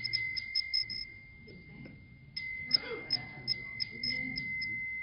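A small ritual hand bell shaken in two runs of quick strikes, about six or seven a second, the first in the opening second and the second from about halfway to near the end, its high, clear tone ringing on between them.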